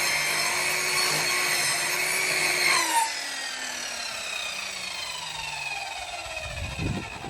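Evolution chop saw running at full speed through a log, then switched off about three seconds in, its whine falling steadily as the blade spins down. A few low knocks near the end.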